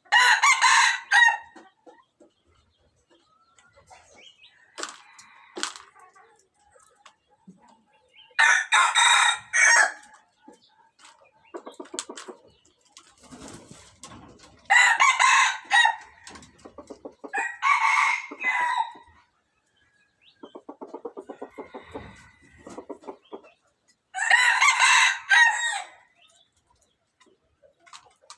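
Rooster crowing about five times, each crow short and loud, with softer clucking calls between crows.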